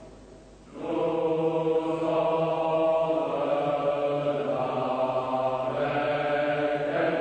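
Music of men's voices singing together in a slow chant, on long held notes. The voices fade briefly and come back in under a second in, then hold steady until they drop away at the very end.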